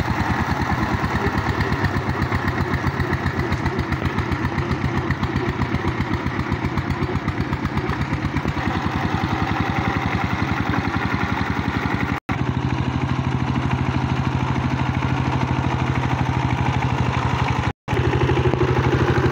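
Two-wheel power tiller's single-cylinder diesel engine running steadily under load with a rapid, even beat while puddling a flooded paddy field. The sound drops out briefly twice, and after the first break a steadier low hum is stronger.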